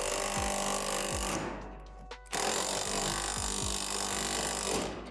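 Cordless power driver running as it tightens bolts and nuts on steel extension arms. It stops briefly about one and a half seconds in, then runs again, over background music.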